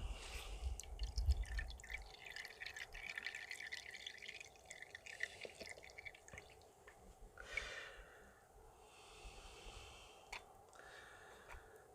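Faint dripping and trickling of liquid squeezed from a tightly twisted straining cloth into a bowl, with scattered small drip sounds.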